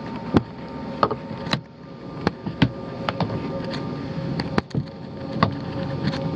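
Irregular sharp knocks and creaks, about one a second, of someone moving about on attic framing, over a steady low rumble and faint hum.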